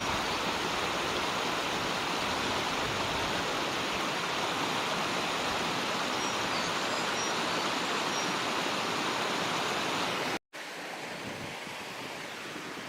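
Mountain stream rushing steadily, with a few faint, short, high bird notes in the middle. The sound breaks off for a moment about ten seconds in and returns as quieter rushing water.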